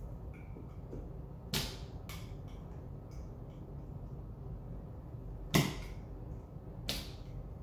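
X-Acto blade knocking resin-printed doll shoe soles off a 3D printer's metal build plate: four sharp clicks as the blade strikes the plate and the parts pop loose, the loudest about five and a half seconds in.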